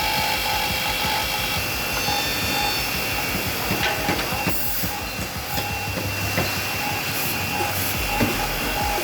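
Automatic double-end wood cutting, drilling and dowel-inserting machine running: a loud, steady whir of saw and drill motors, with scattered knocks and clatter from the wooden pieces.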